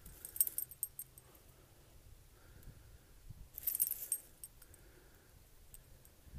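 A dog's metal collar tags jingling in two short bursts, about half a second in and again near four seconds.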